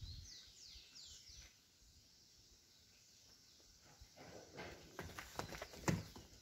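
Faint outdoor sound: a few short falling bird chirps in the first second and a half, then near quiet, then a run of scuffing steps on dirt in the second half, the loudest one near the end.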